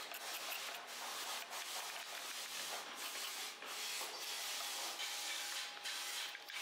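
A carved wooden figure being hand-sanded: steady scratching of abrasive rubbed over the wood, broken by short gaps between strokes.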